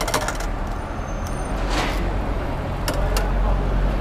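Metal kebab skewers clinking against each other and the grill edge as liver skewers are handled over a charcoal mangal, a few clinks at the start and again about three seconds in. Under them runs a steady low rumble of street traffic.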